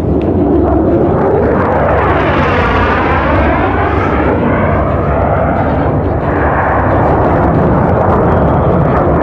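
Jet aircraft flying past in an airshow display: a loud, steady jet roar whose tone sweeps and wavers about two to three seconds in as the aircraft passes.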